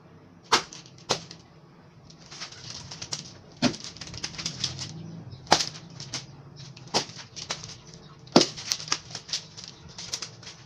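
Nunchaku swung fast, whooshing through the air, with about a dozen sharp clacks as the sticks strike, coming more quickly near the end.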